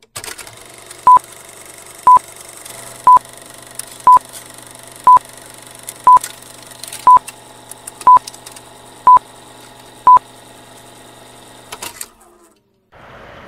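Film-countdown leader sound effect: a short high beep once a second, ten beeps in all, over a steady hum and scattered crackles like an old film projector. It stops about twelve seconds in, and a steady outdoor noise starts just before the end.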